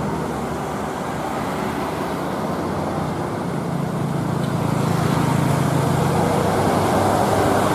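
Road traffic with a vehicle engine humming steadily, its low drone strengthening about halfway through and the overall noise growing gradually louder.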